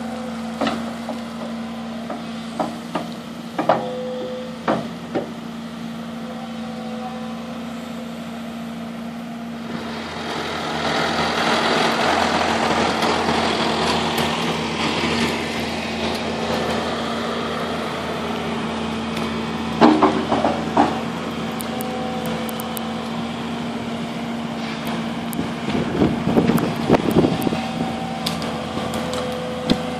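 Volvo EC160BLC excavator's diesel engine running steadily, with scattered knocks and clanks from its clearing bucket working brush and mud. From about ten seconds in, a louder engine rush lasts several seconds as a tractor drives close by.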